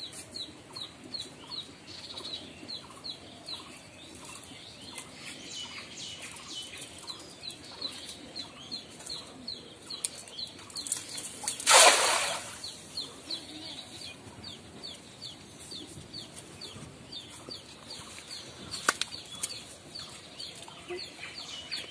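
A weighted cast net thrown into a pond lands with a splash about twelve seconds in, the loudest sound. Under it, short high chirps repeat steadily about twice a second.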